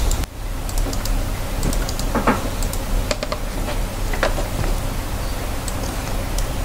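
A few scattered clicks of a computer keyboard and mouse over a steady background hiss with a low hum.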